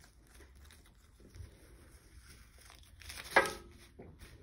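Transfer tape being peeled off a vinyl stencil and crumpled, faint crinkling and rustling, with one short, louder pitched sound a little over three seconds in.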